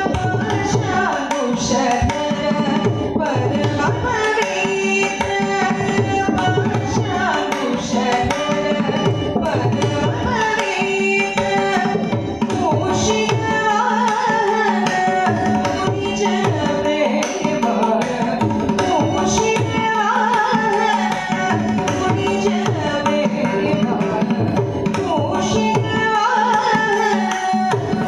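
Carnatic music: a woman singing with mridangam strokes and violin accompaniment over a steady drone.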